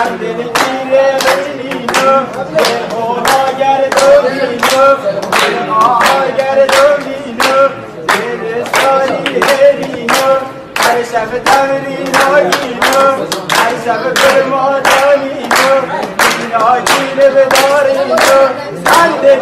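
Steady rhythmic hand clapping in unison, about one and a half claps a second, with a group of voices singing over it.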